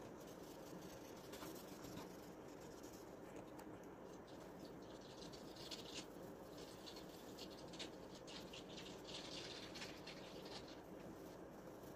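Faint scratching of a pencil shading on paper in short, irregular strokes, over a low steady hum.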